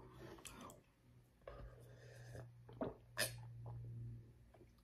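A few faint clicks and mouth sounds as leftover cereal milk is drunk from a plastic bowl, over a steady low hum. The sharpest click comes about three seconds in.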